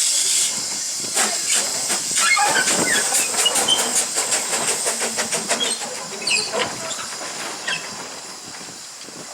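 Railway locomotive moving off: a loud hiss, then a quick, regular run of sharp beats that slows and fades away.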